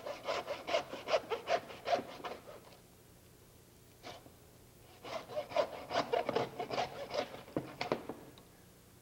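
Meat band saw cutting sirloin steaks through a leg of lamb, meat and bone rasping against the blade at about four or five strokes a second. There are two cuts of about three seconds each, with a pause between.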